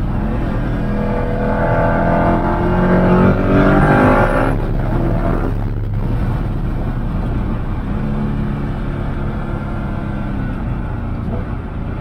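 Koenigsegg Agera's twin-turbo V8, heard from inside the cabin, pulling hard with a rising note for a few seconds. The note breaks off sharply about four and a half seconds in and dips briefly again a second later, then runs on at a lower, steadier pitch and slowly gets quieter.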